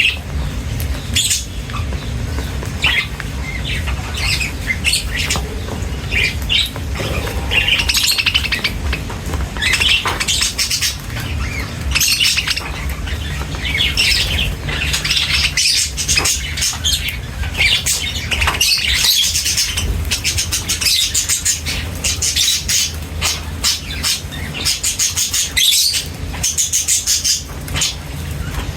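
Many small birds chirping and twittering at once, short calls overlapping without pause, over a steady low rumble.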